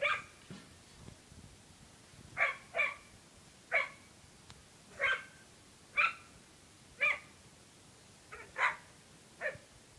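Dog barking at a goose: about ten short, sharp barks, mostly about a second apart, with a quick double bark twice.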